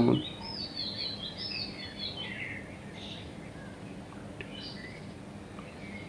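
Songbird chirping: a quick run of high, sliding notes in the first couple of seconds, then a few fainter calls, over faint steady background noise.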